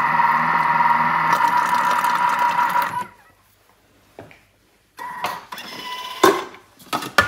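Thermomix food processor motor running with a steady whine as its blade mixes frozen herbs into a creamy dip, cutting off suddenly about three seconds in. A few short clicks and knocks follow near the end.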